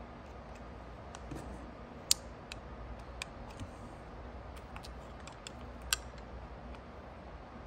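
Light, irregular clicks and taps of small plastic and metal parts being handled: square nuts being fitted into the plastic mounting arms of an e-bike display's handlebar clamp. Two sharper clicks stand out, about two seconds and six seconds in.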